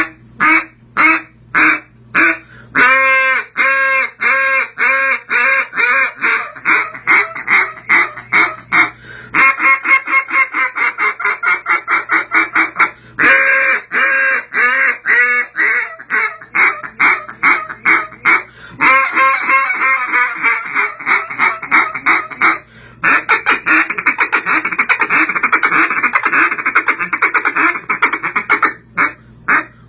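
Tornado Valley Calls Thunderstik duck call, a J-frame-style call, being blown by hand: loud hen-mallard quacks, a few spaced notes at first, then long runs of fast, rapid-fire notes, the densest run near the end.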